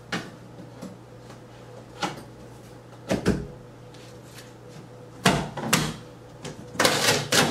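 Knife prying at the clips and flaps of a large cardboard bike box: scattered knocks and scrapes, with a longer rustling, tearing burst near the end as the top flap comes loose.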